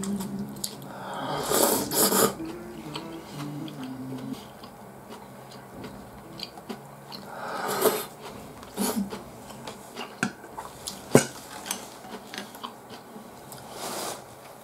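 Miso ramen being eaten: loud slurps of noodles about two seconds in and again around eight seconds, with sips from a soup spoon and a few sharp clicks of utensils against the ceramic bowl. Background music plays under the first few seconds and fades out; a rustle near the end.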